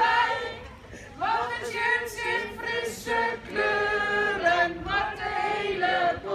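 A group of young children singing together without accompaniment, holding high notes, with a short break about half a second in before the song picks up again.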